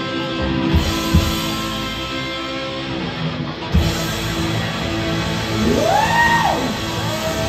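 Live rock band playing: distorted electric guitars holding ringing chords over bass, with a few loud drum hits in the first four seconds. About six seconds in, a note slides up and back down.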